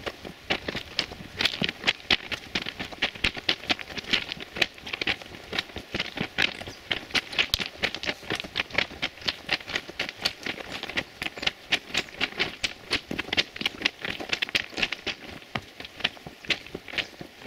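Footsteps crunching on the loose gravel ballast of a railway track at a brisk, steady pace, a quick even run of sharp stony crunches.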